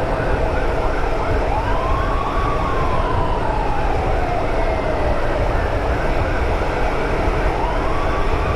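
An emergency siren over the steady rush of wind and road noise from a motorcycle riding at speed. The siren starts with a quick warble, then goes into a slow wail: one rise and a long fall, rising again near the end.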